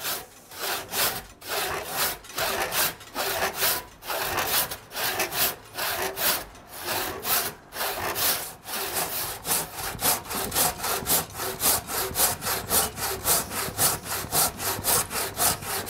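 Handsaw cutting into a wooden ox yoke blank, steady back-and-forth strokes through the wood that speed up over the last few seconds.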